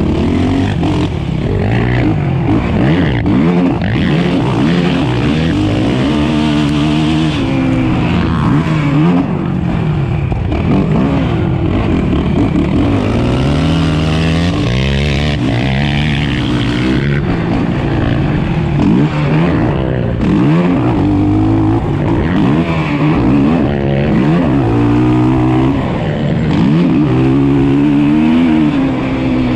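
Race quad's 450 cc single-cylinder four-stroke engine, heard from on board, revving hard and backing off over and over: the pitch climbs and drops every second or two with throttle and gear changes.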